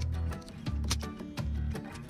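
Background music with a bass line and a light, regular percussive beat.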